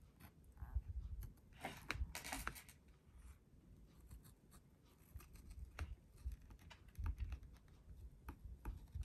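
Gyro-Cut swivel-blade craft cutter cutting through paper: faint, irregular small clicks and scratchy scrapes of the blade, with a few louder rasps about two seconds in.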